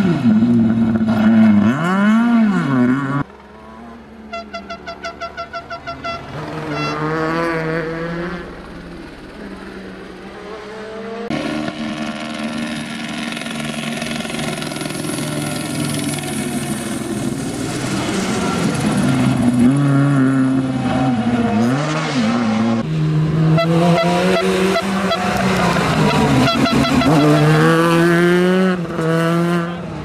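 Fiat Punto Super 1600 rally car's 1.6-litre four-cylinder engine revving hard, its pitch climbing and dropping with each gear change as the car passes at speed. About four seconds in there is a quieter spell with a rapid, even run of short pulses.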